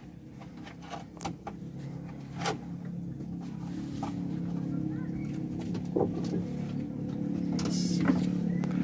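A motor running steadily and growing gradually louder, with scattered knocks and clicks over it.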